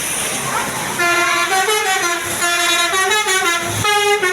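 Basuri telolet horn on a bus playing a quick melody of stepped notes, starting about a second in, with a short break just before the last notes.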